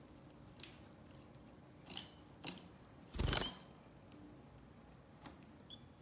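Female canary rustling and scratching in the dry jute fibres of her nest cup in short bursts. About three seconds in there is a louder brief flutter of wings as she leaves the nest, and near the end a short high chirp.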